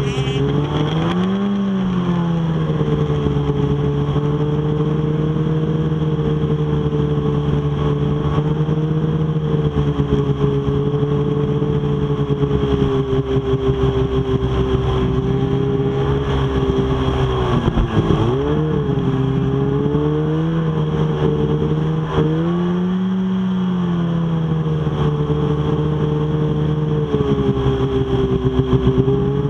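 Snowmobile engine heard from on board, running steadily at speed. Its pitch rises briefly about a second in, dips sharply and recovers about two-thirds of the way through, and rises again a few seconds later.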